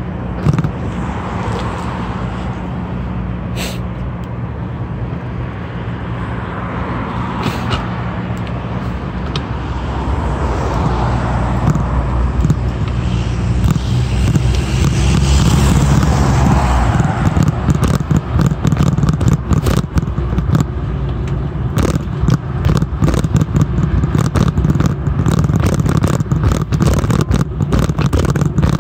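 Noise of riding a bicycle along a sidewalk with a hand-held phone: wind rumble on the microphone and road traffic, with a steady low hum for the first half. The noise grows louder partway through, and from about halfway on it is full of rapid clicks and rattles.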